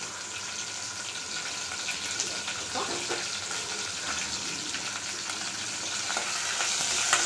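Curry leaves and whole spices (cinnamon, cloves, bay leaf) sizzling and crackling in hot oil in a steel pot, with a steady hiss and scattered pops. A spoon stirs them near the end.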